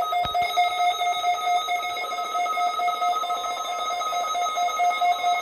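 Weather radio alert alarm: a loud, steady electronic tone at one pitch cuts in abruptly, with a couple of clicks at the start, and holds with a slight flutter. It is the alarm that sounds when a NOAA Weather Radio alert or test signal activates the receiver.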